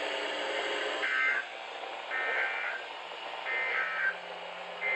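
NOAA Weather Radio receiver playing SAME digital data bursts, the raspy two-tone EAS code chirps that frame a Required Weekly Test, heard four times about a second apart over a steady radio hiss.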